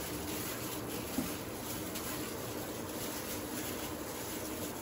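Plastic-gloved hand mixing raw chicken pieces into a yogurt and spice marinade in a glass bowl: soft, steady squishing and rubbing of the glove and wet meat.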